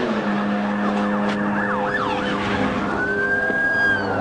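Police car siren: a few quick up-and-down sweeps, then a slow wail that rises and falls, over a steady low engine hum.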